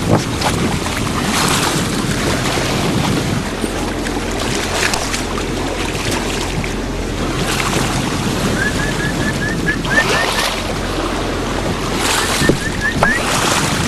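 Wind and water rushing past a sailboat's hull over a steady low hum. About two-thirds of the way in comes a quick run of about nine short, high, rising chirps, and near the end a shorter run of about four. These are dolphins calling as they swim alongside.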